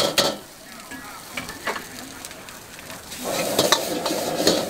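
Metal wok ladle scraping and knocking against a carbon-steel wok as egg fried rice sizzles and is stir-fried. About three seconds in, a steady rushing sound comes in under the ladle strikes.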